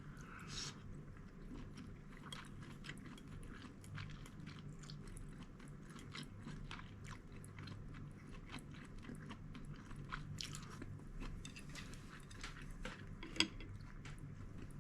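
A person chewing and biting food, with many small irregular crunches and clicks and one sharper click near the end.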